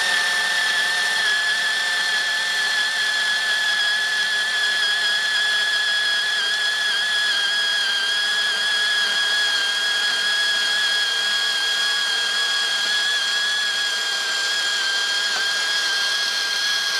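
Makita cordless portable bandsaw running under load, its blade slowly cutting through thick-walled stainless steel tube: a steady high whine. The fine-tooth thin-metal blade is going blunt and is not suited to stainless this thick, so the cut is slow.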